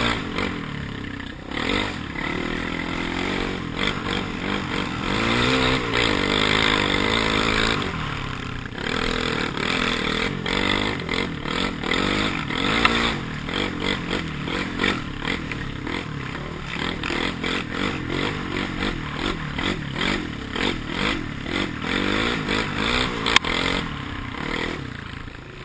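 Quad (ATV) engine being ridden hard, its pitch rising and falling over and over as the throttle is worked, over constant wind rush on the helmet-mounted microphone. One sharp knock near the end.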